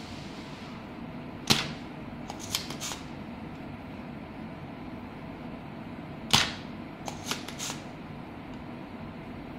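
Spring-loaded desoldering pump (solder sucker) firing twice, about five seconds apart. Each firing is a sharp snap as the plunger releases, followed by a few lighter clicks. The pump is sucking molten solder off the joints of an air-conditioner control board to free a connector jack.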